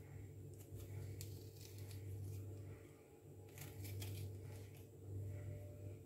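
Channel knife cutting a strip of zest from a lemon: several short, faint rasps as the blade scrapes through the peel, over a steady low hum.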